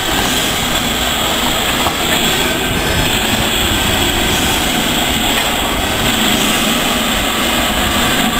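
LNER B12 class 4-6-0 steam locomotive No. 8572 moving past at close range, with a loud, steady hiss and rumble of steam and running gear.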